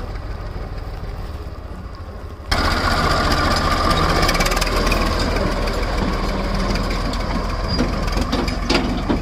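HMT tractor's diesel engine running steadily, at first farther off, then suddenly much louder and closer about two and a half seconds in.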